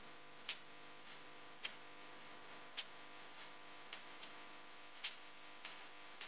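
Hot cooking oil in a wok, a spring roll deep-frying, giving faint, sharp single pops at uneven intervals, roughly one or two a second, over a faint steady hum.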